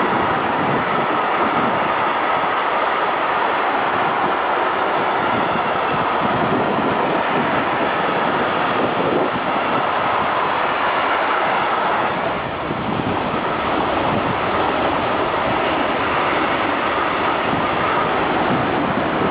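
A train passing close by: steady rolling noise of wheels on the rails, with a brief dip about two-thirds of the way through.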